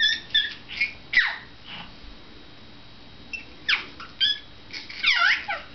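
Baby making a string of short, high-pitched squeals, several of them sliding down in pitch, with a pause of about a second and a half in the middle.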